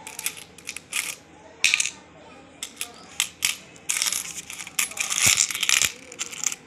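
Coins clinking and clattering in white bowls as a child's hand rummages through a pile of coins and drops them into a smaller bowl. A string of irregular clinks, with a busier stretch of clatter after about four seconds.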